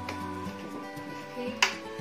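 Background music with sustained notes, and one sharp click about three-quarters of the way in.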